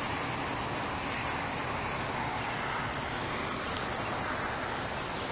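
Rainwater runoff running, a steady even rush with a few faint ticks.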